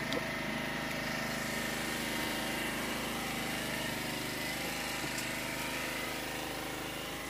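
A small engine running steadily, an even mechanical drone that does not change.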